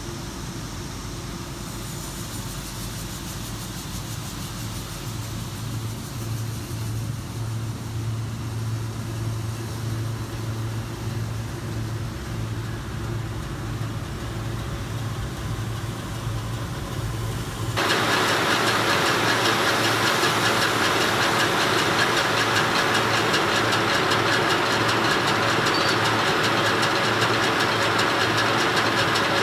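Lissmac SBML double-sided deburring and edge-rounding machine running while a sheet-metal part is processed: a steady low hum at first, then, about 18 seconds in, an abrupt jump to a much louder, steady rushing noise that holds to the end.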